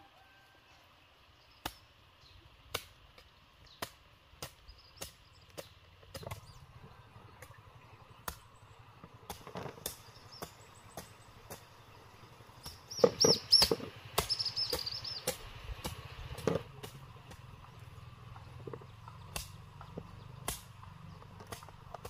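Scattered sharp knocks and clacks of cut bamboo-shoot pieces being handled and gathered, with a louder burst of clattering about 13 seconds in.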